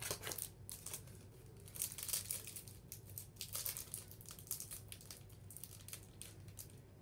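Shiny foil wrapper of a trading-card pack being crinkled and torn open by hand: irregular crackles and rustles, with a few louder flurries.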